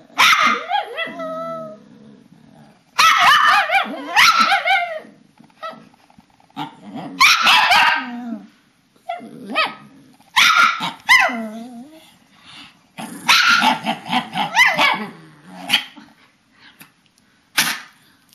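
Papillon "talking": drawn-out, wavering yowls and grumbles in about six bouts of a second or two each with pauses between, ending with one short call near the end.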